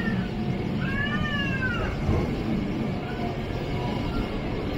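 Tram running with a steady low rumble. About a second in, a brief high whine rises and falls in pitch over about a second.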